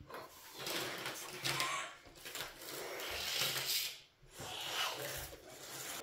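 A child blowing up a rubber balloon by mouth: three long puffs of breath into it, with short breaks between them.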